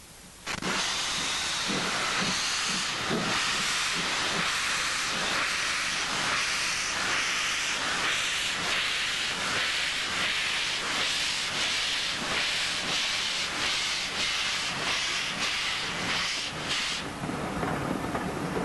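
Steam locomotive working, with a loud hiss of steam and regular chuffs; it starts abruptly about half a second in, and the hiss stops near the end while the train's rumble carries on.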